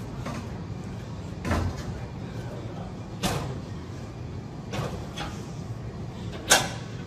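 Barbell curls with a fixed-weight barbell: four short sharp sounds about a second and a half apart, one per rep, the last the loudest, over a steady background hum.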